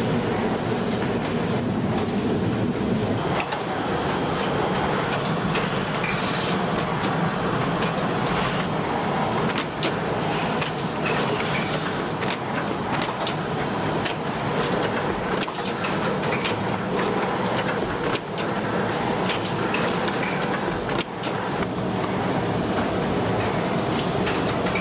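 Carton-making machinery running: a steady mechanical clatter with frequent sharp clicks, its low hum changing about three seconds in.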